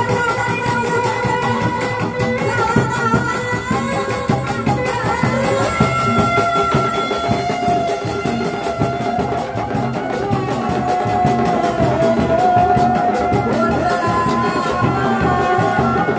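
Sundanese dogdog drum ensemble playing a fast, steady rhythm on several dogdog drums and a large drum, with a wavering high melody carried over the drumming.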